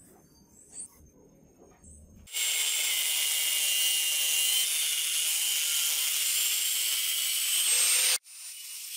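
Angle grinder with an abrasive disc grinding a small piece of scrap iron clamped in a vise: a loud, steady, high-pitched grinding hiss with a thin whine in it. It starts suddenly a little over two seconds in and cuts off abruptly about eight seconds in.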